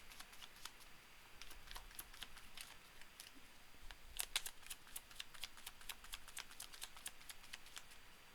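Tarot cards being shuffled and handled: faint, irregular clicks and flicks of card edges, a little busier around the middle.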